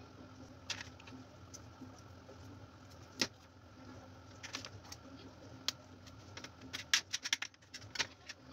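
Small sharp clicks and crackles of hands pulling apart a salted fish, tearing skin and bones away from the flesh, scattered at first and coming in a quick run from about six and a half seconds in, over a faint steady hum.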